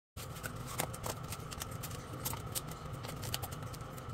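Aluminium foil tray lids being pressed and crimped on by hand: scattered soft crinkles and clicks over a steady low hum.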